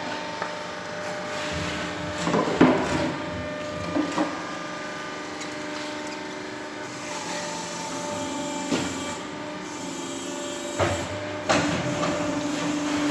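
Hydraulic concrete block and paving block press running: a steady motor and pump hum with several sharp metal clanks and knocks.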